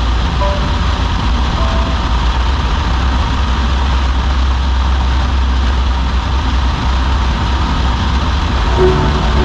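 Steady engine and airflow noise of a single-engine Piper Cherokee Dakota in flight, heavy in the low end, with no change in power.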